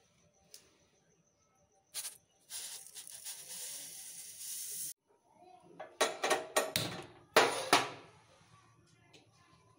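Granulated sugar poured onto grated carrots in a metal pot, a steady hiss lasting a couple of seconds. About six seconds in, a quick run of loud clicks and knocks follows.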